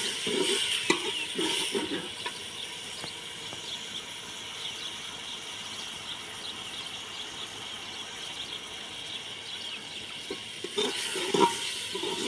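Onions frying in ghee in a pot over a wood fire: a steady sizzling hiss with small crackles. There are a few soft low knocks in the first two seconds and again near the end.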